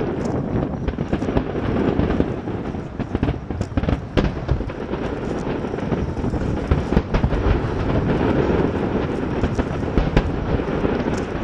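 Fireworks display: many fireworks bursting together into a continuous rumble, with sharp cracks scattered throughout.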